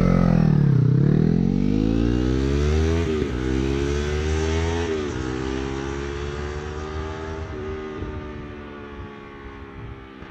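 Yamaha YZF-R3 parallel-twin engine through an Akrapovic GP slip-on exhaust, accelerating hard from a standstill. The revs climb through the gears with three upshifts, about three, five and seven and a half seconds in, and the sound fades as the bike rides away into the distance.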